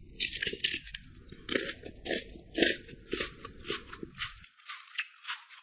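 Crisp, repeated crunching of something being chewed, about two or three crunches a second.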